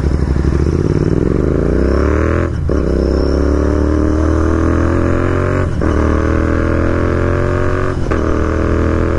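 Royal Enfield Continental GT 650's parallel-twin engine accelerating hard through the gears. Revs climb in each gear and drop sharply three times as it is shifted up without the clutch, each climb slower than the one before.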